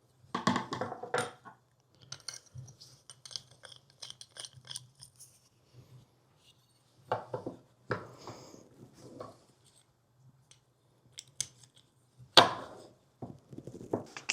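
Hand tools and metal hardware clinking, clattering and scraping in short bursts while the Humvee's doghouse cover is being fitted, with a louder knock near the end. A faint steady low hum runs underneath.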